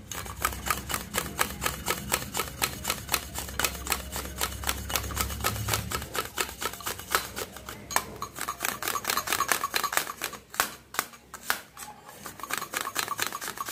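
Large kitchen knife rapidly slicing red onion on a stainless-steel board, the blade tapping the metal in a steady run of sharp clicks, about five a second.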